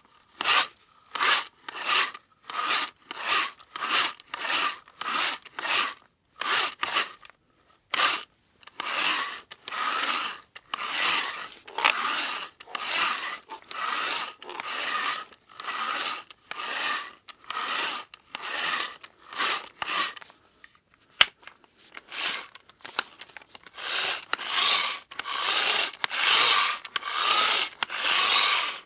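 Manual hand drill being worked, a rasping grind in repeated strokes about two a second, breaking off briefly twice; the later strokes run longer.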